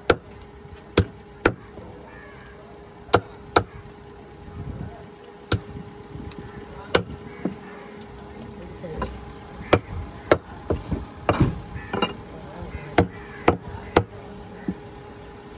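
Heavy cleaver chopping black trevally on a wooden log chopping block: a string of sharp, irregular knocks, coming faster in the second half.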